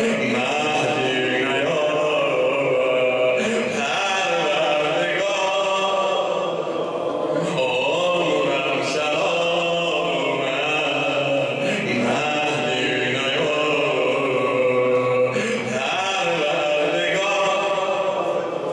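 A man's solo chanted lament in Persian: a maddah singing mourning poetry (nohe) in long, drawn-out melodic phrases, each rising and falling before a short break for breath.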